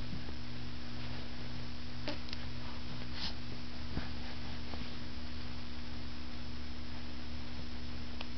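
Room tone: a steady low electrical hum, with a few faint soft clicks.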